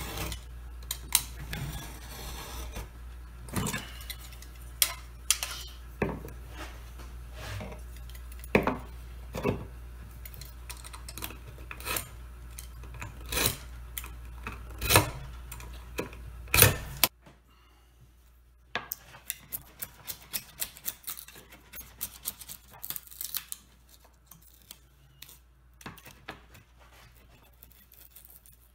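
Utility knife drawn again and again along a metal square, cutting down through two layers of mahogany veneer: scraping strokes with sharp clicks of blade against steel, over a steady low hum. After about 17 seconds the hum stops and quieter, quicker ticks and scrapes follow as a chisel works at the cut veneer.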